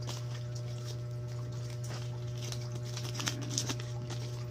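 Folded paper banknotes rustling and crinkling in the hands as they are unfolded and counted, with a few sharper crinkles past the middle. A steady low hum runs underneath.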